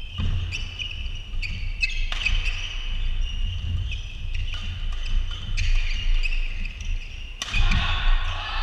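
Badminton doubles rally: rackets striking the shuttlecock in quick exchanges, about two hits a second, with shoes squeaking on the court floor over the hall's low rumble. Near the end the rally stops and a louder wash of voices and noise from the hall takes over.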